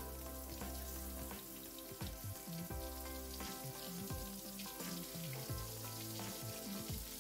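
Blended chili spice paste frying in hot oil in a wok: a steady fine crackle and sizzle of oil around the paste. Background music with a stepping bass line plays along.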